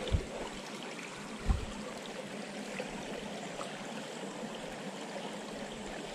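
Shallow creek water running steadily over rocks, with two brief low thumps, one at the very start and one about a second and a half in.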